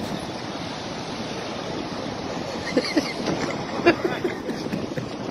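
Steady wind on the microphone mixed with sea waves washing at an icy shoreline, with a few brief, faint voices about three seconds in.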